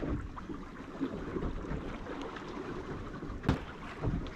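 Wind buffeting the microphone and sea water lapping against the hull of a small boat, with one sharp knock about three and a half seconds in.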